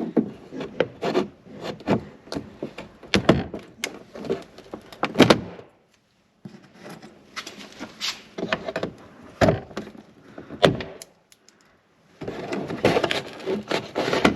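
A trim clip removal tool prying plastic Christmas-tree push-pin clips out of a plastic fender trim panel: a run of sharp plastic clicks, knocks and scraping, with two short pauses.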